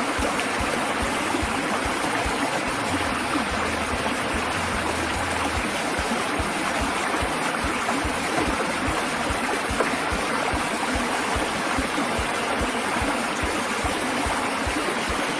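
Fast shallow stream pouring over flat rock ledges right at the microphone: a steady rush of water with frequent low gurgling thuds underneath.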